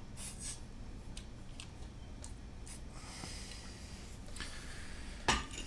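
Faint clicks and light handling noises of small keyboard parts and tools on a desk, with a soft hiss about three seconds in and one sharper click near the end.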